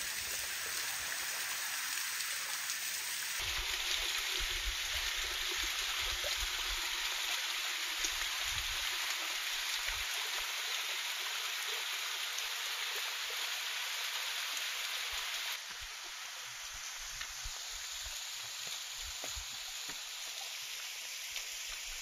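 Water from a thin waterfall splashing down a rock face: a steady hiss of falling water that changes level abruptly twice, about three seconds in and again past the middle.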